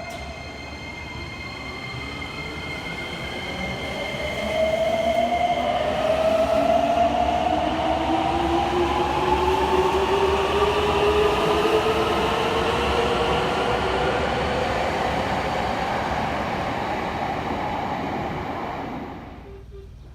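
Subway train accelerating, its motor whine rising slowly and steadily in pitch over the running noise. The sound grows louder over the first few seconds, holds, and then drops off suddenly near the end.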